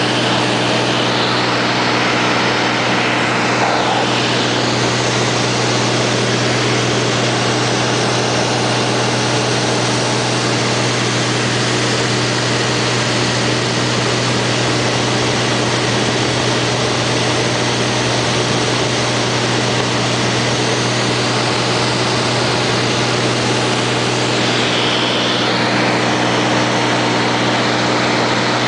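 Cabin noise of a Cessna 210 in flight: its six-cylinder piston engine and propeller running steadily, a constant low hum with a loud rush of air over it.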